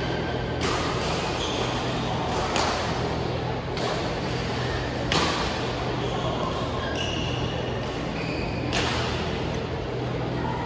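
Badminton rackets striking a shuttlecock in a rally: about five sharp cracks a second or two apart, the last after a longer gap, with short high squeaks of shoes on the court floor. A steady low hum runs underneath.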